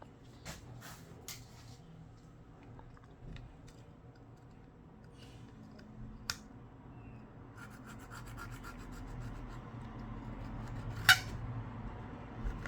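Faint rubbing and scraping on a phone's frame during repair work. It grows steadier after about seven seconds, with a few light clicks and one sharp click near the end.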